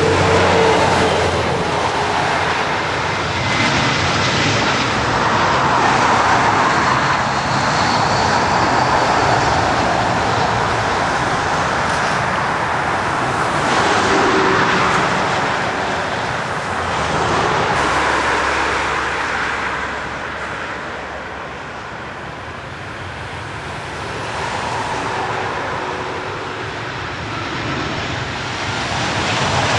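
Airliner engines during a landing, a steady rushing noise that swells and fades in waves and dips about two-thirds of the way through.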